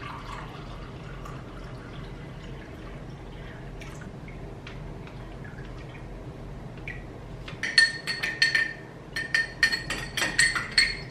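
Liquid pouring into a ribbed glass tumbler. About eight seconds in, a metal spoon stirs the drink, clinking rapidly against the sides of the glass many times, each clink ringing brightly.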